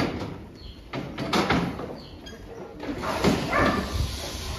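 Steel sheep-yard gates and panels knocking and rattling: a sharp knock at the start and two more about a second in.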